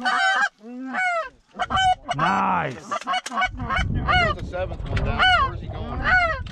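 Canada goose honks and clucks in quick succession, about two short arching calls a second, with one longer, lower honk about two seconds in. A low rumble runs underneath from about halfway.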